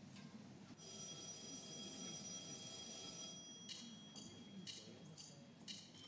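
Bell-like metallic chimes: a high ringing tone held for about two and a half seconds, then a run of short struck chimes every half second or so.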